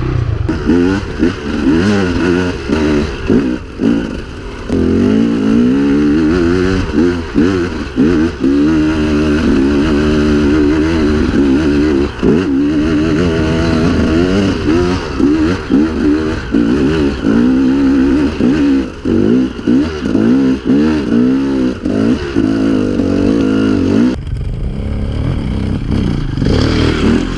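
KTM EXC two-stroke enduro motorcycle ridden over rough grassy ground, its engine revving up and down again and again with the throttle.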